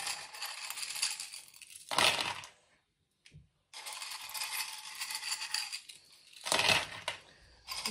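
Expanded clay pebbles and foam glass clattering and rattling against a glass jar as they are tipped and shaken in. Louder clatters come about two seconds in and again near the end, with a brief pause in between.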